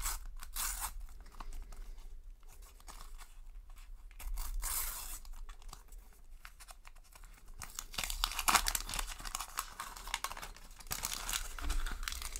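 Panini sticker packet being torn open by hand, its glossy wrapper crinkling, then the stickers slid out and handled, in several uneven rustling bursts; the loudest come a little before halfway and about two-thirds through.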